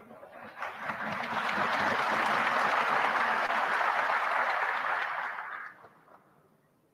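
Applause from a crowd: dense clapping that swells within the first second or so, holds steady, and dies away near the end.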